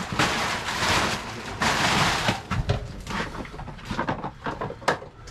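Plastic tarp rustling and crinkling as it is lifted and pulled aside, followed by a string of short knocks and clatters from clutter being shifted, with one sharper knock near the end.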